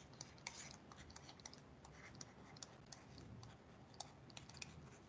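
Faint, irregular clicks and taps of a stylus writing on a pen tablet, over near-silent room tone.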